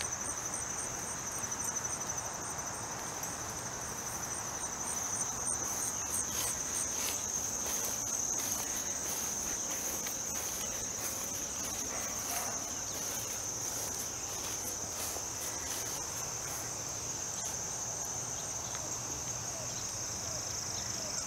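Insects trilling steadily at a high pitch, with a second, higher pulsing trill that fades out about eight seconds in.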